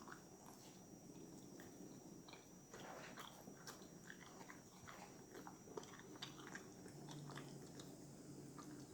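Faint chewing and lip-smacking of barbecued turkey leg meat: irregular small wet mouth clicks.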